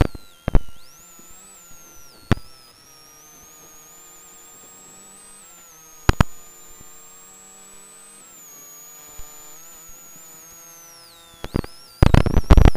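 Rally car intercom feed with steady electrical hum and a high wavering whine from interference, broken by sharp loud crackles about half a second in, at about 2 and 6 seconds, and a dense burst of crackling near the end.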